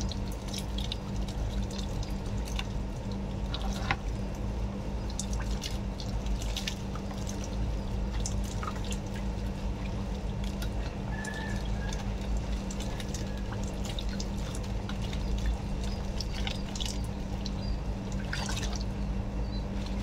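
Water poured from a plastic dipper over long, shampooed hair, splashing and dripping as the soap is rinsed out, with scattered small splashes, over a steady low hum.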